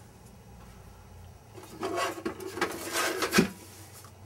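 Small steel portable gun safes being handled and shifted against each other, scraping and rubbing, with one sharp knock about three and a half seconds in.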